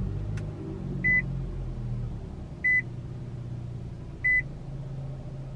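2022 Nissan Sentra's 2.0-litre four-cylinder engine, just started, idling at a raised cold-start speed with a low hum that eases after a couple of seconds. Over it, a dashboard warning chime beeps three times at a single pitch, about a second and a half apart.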